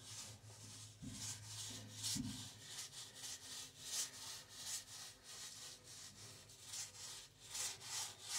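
Small foam paint roller rolled back and forth over a rough plastered wall, spreading wet resin. Each stroke gives a faint swish, about two a second, growing louder near the end.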